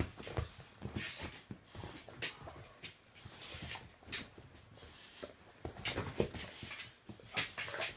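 An American Bulldog and miniature pinschers play-fighting: irregular scuffling and short dog noises come in uneven bursts, loudest about six seconds in and again near the end.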